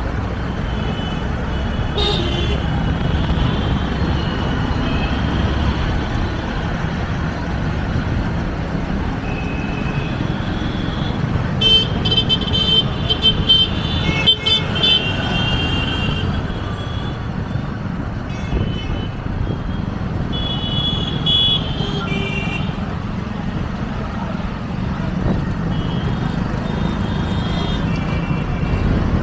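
Busy city street traffic: a steady rumble of engines and road noise, with motorbike and car horns honking again and again. A cluster of honks about halfway through is the loudest part.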